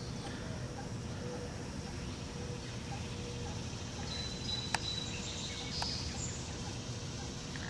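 Quiet, steady background noise with two faint clicks around the middle and a brief high chirp just before them.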